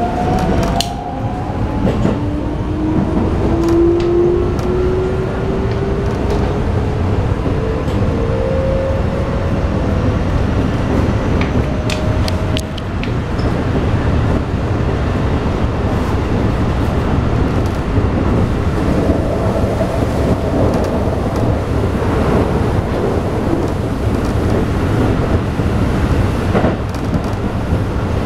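Keikyu New 1000 series electric train heard from inside the carriage. The Toyo IGBT-VVVF inverter and traction motors whine in several tones that rise steadily in pitch as the train accelerates, then cut out about 13 s in. After that comes the rumble of wheels on rail with scattered clicks, and a steady tone returns briefly later on.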